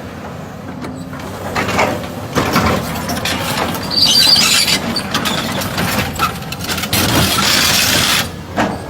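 Caterpillar 320D excavator at work during a track fitting: irregular metallic clanks and scraping over the low running of the machine, with two longer stretches of harsh hiss and squeal, about four seconds in and again from about seven to eight seconds.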